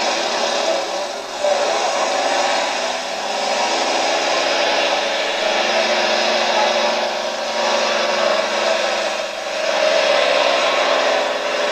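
Modified pulling tractor's engine running flat out under heavy load, a steady harsh note with the pitch settling and holding after the first few seconds; the thick black exhaust smoke marks it as working at full power.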